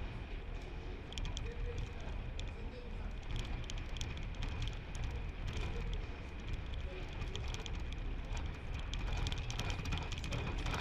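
Rattling and clicking from a building shaking in an earthquake, over a steady low rumble. The clicks grow busier in the last few seconds as the shaking grows stronger, and a faint steady high tone runs underneath.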